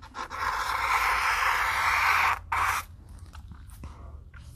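Felt-tip marker scratching across paper on a clipboard in long strokes, with a short break about two and a half seconds in.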